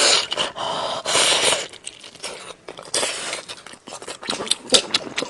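Steamed chicken being torn apart by hand: noisy tearing and rustling bursts, the loudest at the start and about a second in, then a run of short clicks and crackles.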